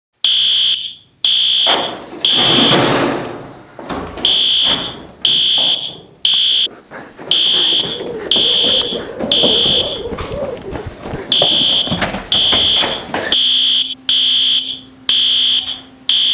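Building fire alarm sounding loudly in repeated high-pitched pulses, about one a second with a few short gaps. Underneath, in the middle, there is a noisy wash of other sound with some knocks.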